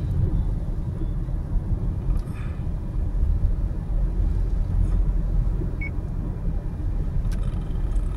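Car cruising at highway speed, heard from inside the cabin: a steady low rumble of road and tyre noise with the engine under it.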